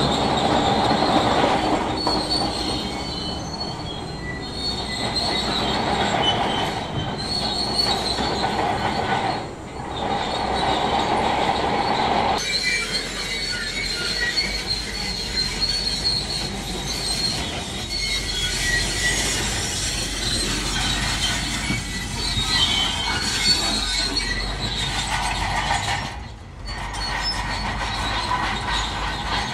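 Shantui crawler bulldozer at work: its diesel engine runs under high, squealing tones from the steel tracks. The sound changes abruptly about twelve seconds in, and again briefly later, like a cut between shots.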